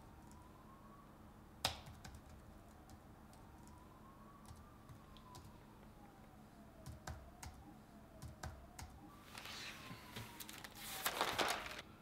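Laptop keyboard being typed on in scattered clicks, with newspaper pages rustling near the end, the loudest sound. A faint tone slowly rises and falls underneath.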